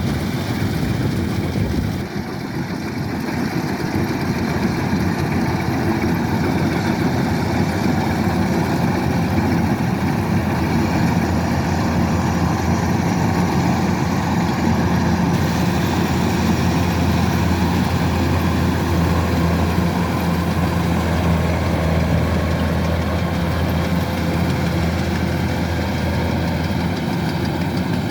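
Kubota DC-105X combine harvester's diesel engine and machinery running steadily at work, a constant low drone with a brief dip in level about two seconds in.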